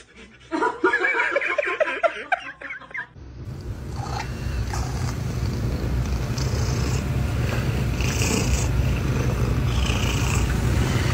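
A cat making a quick run of short, wavering mews for about three seconds, then, after a cut, a cat purring loudly and steadily close to the microphone.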